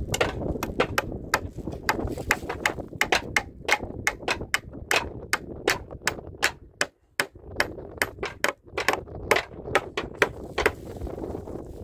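A quick, uneven series of sharp knocks, about three a second, with a short break about seven seconds in, over a low rumbling background.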